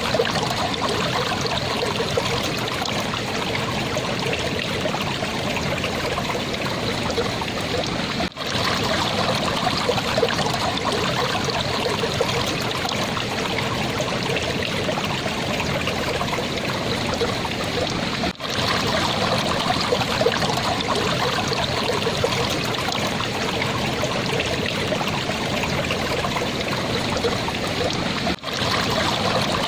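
A small stream of water flowing and trickling gently, a steady burbling with brief drop-outs about every ten seconds.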